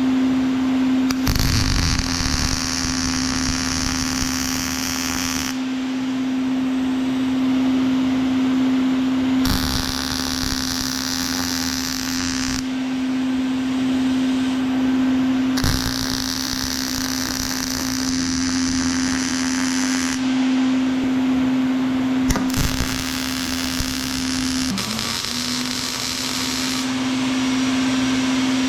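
Welding sheet steel into a cabinet frame, tacking it down in four separate runs of a few seconds each with the crackling hiss of the arc, over a steady hum that carries on through the pauses.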